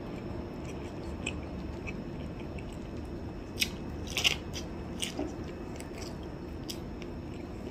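Biting and chewing kernels off a cob of cooked corn: a few short, crisp bites starting about three and a half seconds in, the loudest just after four seconds, over a steady low hum.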